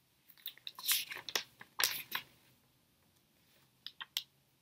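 Folded paper leaflet being unfolded by hand: crisp crackling and rustling of the paper in irregular bursts, then a pause and two short crinkles near the end.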